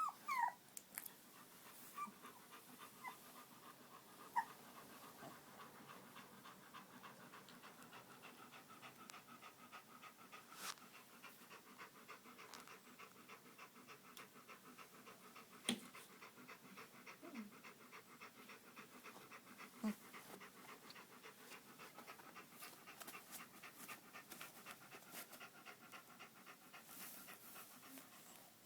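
Shiloh Shepherd puppy panting fast and steadily, faint, with a couple of short squeaks in the first few seconds and a few sharp clicks later on.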